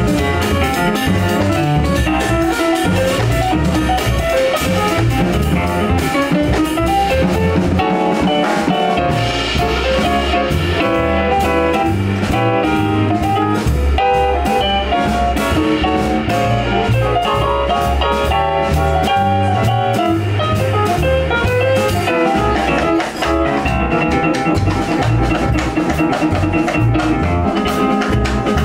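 Live small-group jazz: piano playing a fast run of notes over a walking bass line and drum kit with steady cymbal work.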